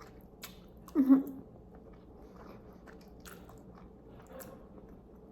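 A person chewing a mouthful of instant black bean noodles close to the microphone, with soft wet mouth clicks and smacks. A short, louder vocal sound about a second in.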